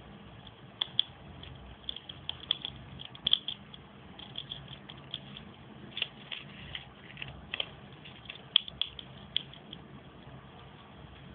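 Chipmunk gnawing and cracking seed shells with its teeth: irregular small sharp cracks and clicks, sometimes in quick clusters, over a faint steady low hum.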